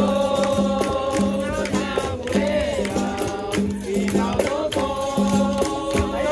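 Capoeira roda music: several voices singing long held notes together over a steady repeating low note pattern from a berimbau, with rattling percussion.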